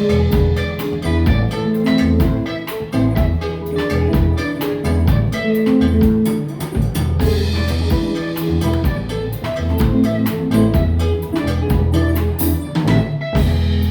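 Live band playing an instrumental intro on acoustic nylon-string guitar, electric bass and drum kit, with a steady, even beat.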